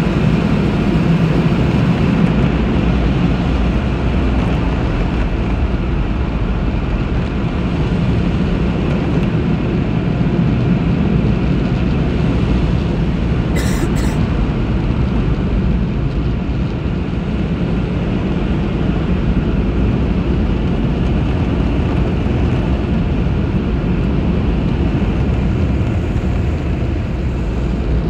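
Car wash air dryer blowers running, a loud steady rush of air with a low rumble, heard from inside a car as it passes through the drying stage.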